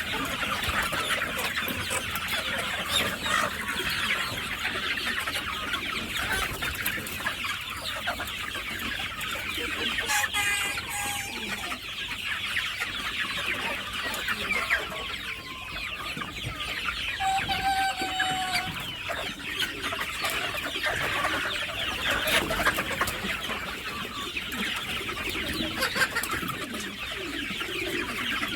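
A flock of chickens clucking and squawking continuously, many calls overlapping, with a couple of longer, held calls standing out partway through.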